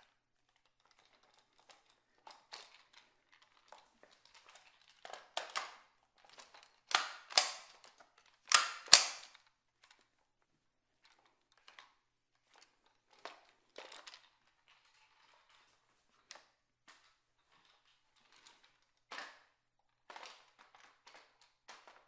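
Ruger 10/22 rifle being reloaded and handled unloaded: scattered metallic clicks and clacks of the magazine and action, with two pairs of loud, sharp clacks about a third of the way in. Each clack rings briefly off the hard walls of a small tiled bathroom.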